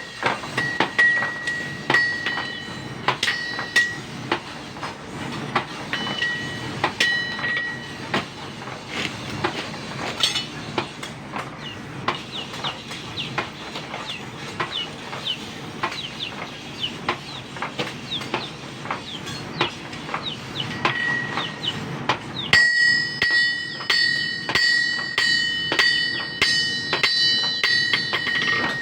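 Several blacksmiths' hammers striking metal on an anvil in a quick, steady, synchronized rhythm. The strikes carry a high metallic ring for the first few seconds and again from about three-quarters of the way through; in between they are drier taps without ring.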